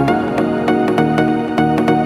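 Background music: held, pitched notes over a steady beat.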